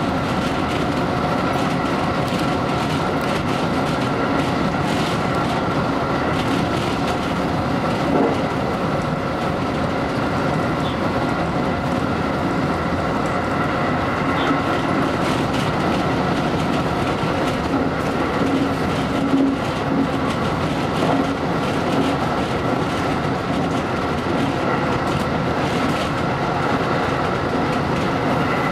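JR Special Rapid electric multiple-unit train running at speed, heard from just behind the driver's cab: a steady rumble of steel wheels on the rails with a constant high hum and scattered clacks over the track.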